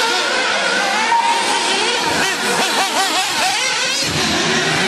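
Several 1/8-scale nitro RC buggies' small two-stroke glow engines running at once, revving up and backing off in overlapping, rising and falling whines as they race.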